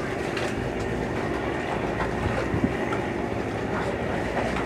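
River boat's engine running with a steady drone under an even rushing noise.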